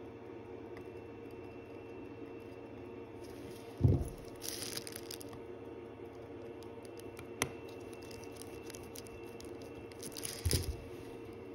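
Small handling sounds at a watchmaker's bench while case clamps are fitted to a watch movement: a low thump about four seconds in with a brief scrape after it, a single sharp click a few seconds later, and another thump with scraping near the end, over a faint steady hum.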